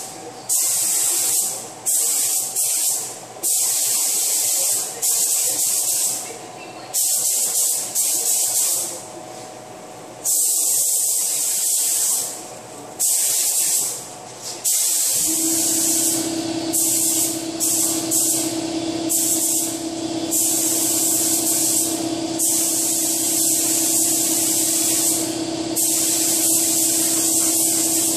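Gravity-feed paint spray gun hissing in repeated bursts as the trigger is pulled and released, with longer passes later on. About halfway through, a steady low hum starts underneath and carries on.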